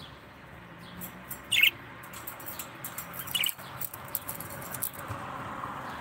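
Pet budgerigars chirping in short, sharp calls mixed with quick high clicks; the loudest chirp comes about a second and a half in, another near the middle.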